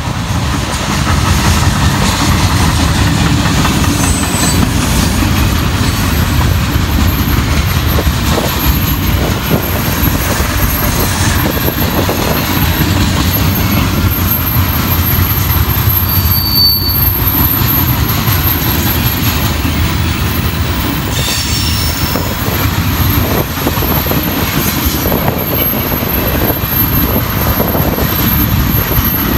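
Freight cars of a manifest train rolling steadily past, with a heavy rumble of steel wheels on rail and scattered clicks over rail joints. A thin, high wheel squeal runs over it, with a couple of brief sharper squeals partway through.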